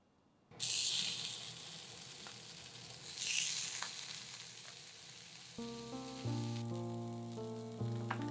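Slices of Spam sizzling in a hot iron frying pan. The sizzle starts suddenly about half a second in, surges again about three seconds in, then settles into steady frying. Soft background music with held notes comes in a little past halfway.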